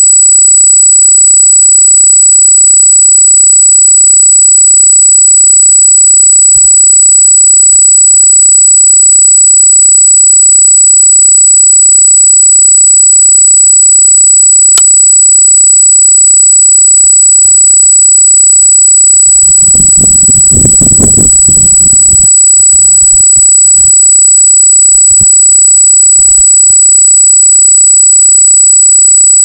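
Steady high-pitched electronic squeal from the trail camera's own recording, an unexplained fault in its audio, made of several thin tones at once. About twenty seconds in, a low rumbling noise lasts about two seconds.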